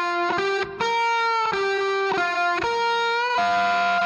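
Instrumental background music: a melody of held notes, each about half a second long, stepping up and down in pitch.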